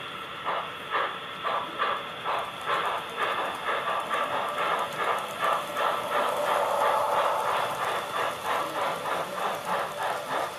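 Sound decoders in model C62 steam locomotives playing steam exhaust chuffs through small speakers, a regular beat of about two puffs a second that quickens toward three a second. A steadier hiss swells under the chuffing about halfway through.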